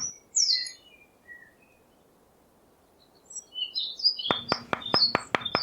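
Small birds chirping, with short rising tweets, then a brief lull, then more chirps. Near the end a steady ticking starts, about four clicks a second.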